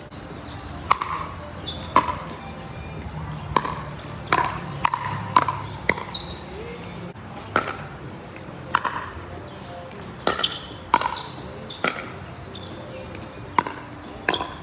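Pickleball rally: a plastic pickleball struck by solid paddles, with the ball bouncing on the hard court, making over a dozen sharp, hollow pops in uneven bursts.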